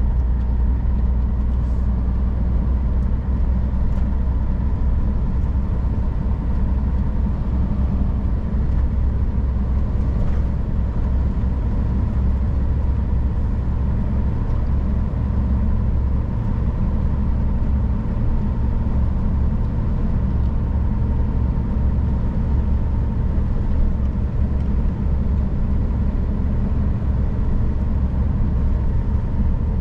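Scania R440 truck on the move, its inline-six diesel engine running with a steady low drone and a thin, steady whine above it.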